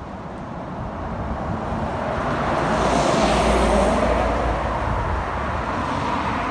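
A heavy lorry driving past on the road, its noise swelling to a peak about halfway through and then slowly fading.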